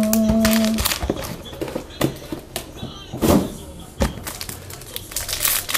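Handling of a trading-card box and its packaging: scattered clicks, taps and rustles of cardboard and wrapper. It opens with a short held note of a person's voice that cuts off under a second in.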